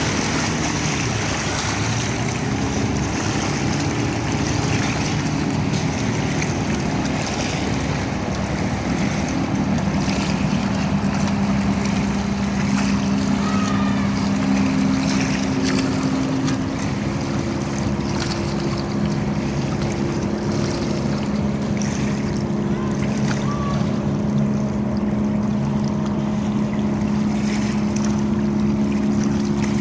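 Motorboat engine running as a large cabin cruiser passes at speed on the river, a steady low drone over the rush of water.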